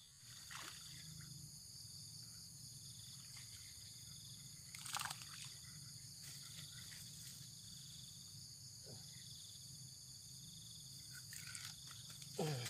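A steady, high-pitched chorus of insects, with a brief splash about half a second in and another short, sharp sound about five seconds in, while a hooked snakehead is fought in. A short falling sound comes near the end.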